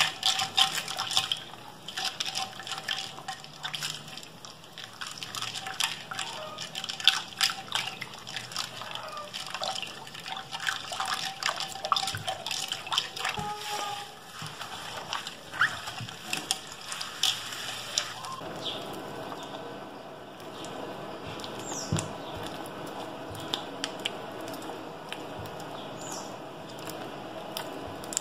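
Hands squishing and stirring a wet mix of foam beads and slime ingredients in a glass dish: sloshing and splashing with many small sharp clicks. About two-thirds of the way through it turns into a denser, steadier squelching as the mix thickens into fluffy slime.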